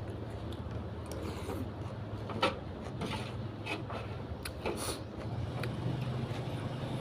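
Eating sounds from a bowl of noodle soup: a few short sharp clicks and smacks, from mouth or utensils, over a steady low background hum.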